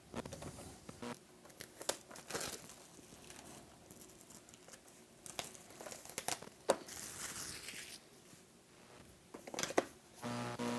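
Plastic packaging of a trading card box being crinkled and torn open by hand, with scattered clicks and rustles.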